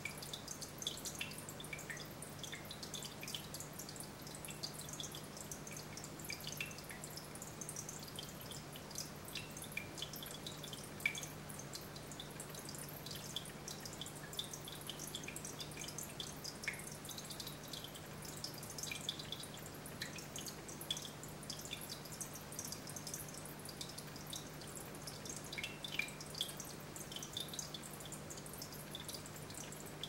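Aquarium water trickling, with many small irregular drips and splashes over a steady low hum.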